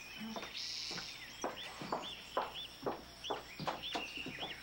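Footsteps on a hard paved floor, about two steps a second, as a man walks away, while a small bird chirps repeatedly in short high calls.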